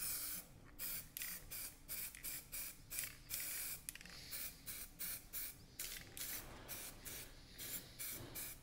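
Aerosol can of primer spraying in short hissing bursts, roughly one or two a second, as a coat of primer goes onto a wheel trim.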